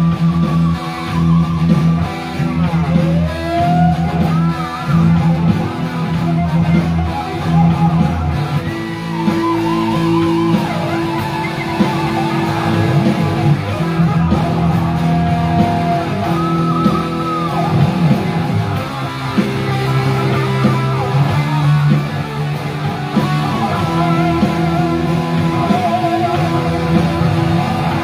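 Two amplified electric guitars jamming: one holds a steady chord rhythm while the other plays a lead line with string bends.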